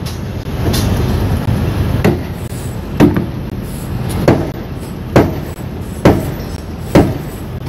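Steady low machinery rumble of a tower crane at work, heard from the operator's cab, with six sharp knocks from about two seconds in, roughly one a second.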